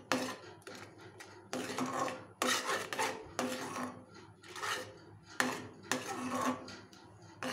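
Steel spoon scraping around the bottom and sides of a thick aluminium kadai, stirring a thick melted white-chocolate and condensed-milk fudge mixture. The strokes come irregularly, about one a second, as the mixture is kept from sticking to the bottom.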